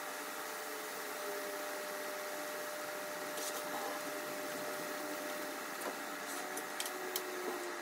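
Steady hum and hiss of a workshop room with a faint steady tone through it. A few light clicks and taps come from the laser source cabinet being handled and set on a wooden bench top, most of them near the end.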